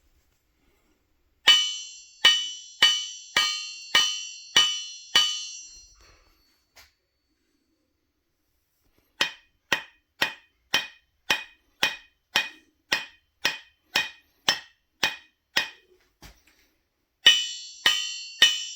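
Aluminium extrusion profiles struck in a steady series of knocks, a little under two a second. About seven knocks ring on long and bright. After a pause a dozen knocks die away much sooner, and near the end the long bright ringing returns. This is a hollow aluminium profile ringing, set against one filled with epoxy granite that damps the ring.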